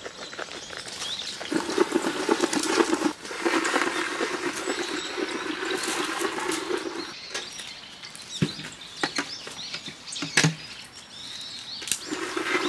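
A small dog's paws scuffling and pattering on a tent's groundsheet floor and bedding, in a rough scratchy stretch lasting several seconds, then a few sharp clicks.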